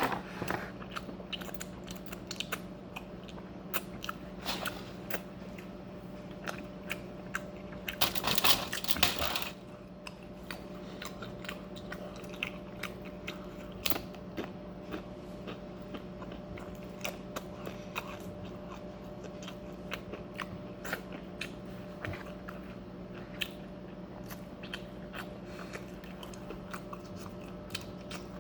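A person chewing and crunching food close to the microphone, with many small mouth clicks and a louder crunch lasting over a second about eight seconds in. A steady low hum runs underneath.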